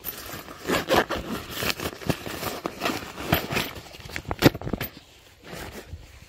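Hands rummaging in a nylon backpack: fabric rustling and scraping as a zipper pocket is worked and gear is pulled out, in irregular rustles and knocks that thin out near the end.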